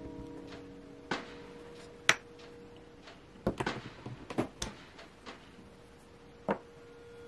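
Wooden-block rubber stamp and ink pad handled on a desk: a scattering of light taps and knocks, the sharpest about two seconds in, a quick cluster as the stamp is pressed down midway, and one more near the end. A faint held music note fades underneath.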